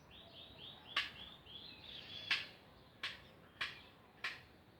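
A bird singing a quick run of repeated high arched chirps, over a series of sharp clicks that come roughly every half-second to second.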